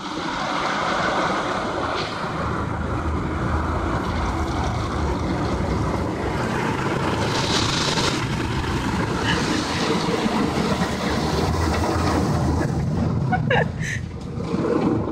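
Automatic car wash working over the car, heard from inside the cabin: a steady loud rush with a low rumble underneath.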